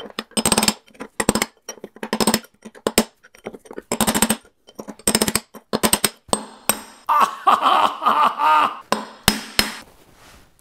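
Framing hammer striking a steel punch to drive a mangled old drum bearing out of a front-load washer's rear drum housing: about a dozen sharp metallic blows at an irregular pace, each with a brief ring.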